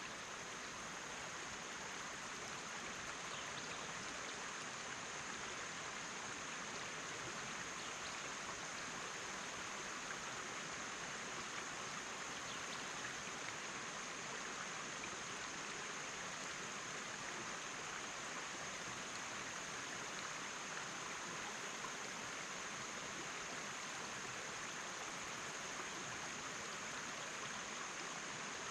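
River water rushing steadily over rocky shoals, an even, unchanging rush.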